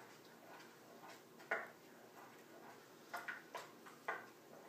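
A stirring utensil knocking and scraping against the side of a crock pot while diced tomatoes and seasoning mix are stirred together. The knocks are a few soft, separate clicks: one early, then several close together in the second half.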